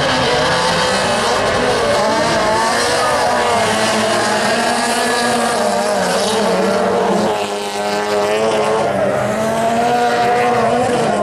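Racing car engines revving hard on a dirt autocross track, their pitch rising and falling as the cars accelerate and shift. The sound dips briefly about seven seconds in, then climbs again.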